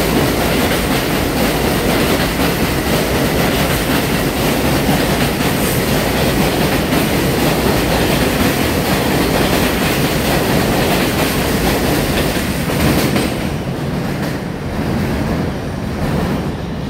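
R142 subway train passing through a station at speed without stopping: loud, steady noise of wheels on rails that fades from about thirteen seconds in as the last car goes by and the train pulls away.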